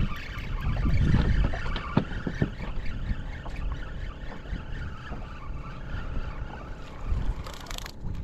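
Wind buffeting the microphone over choppy water, with water lapping against a small boat's hull and a couple of light knocks about two seconds in.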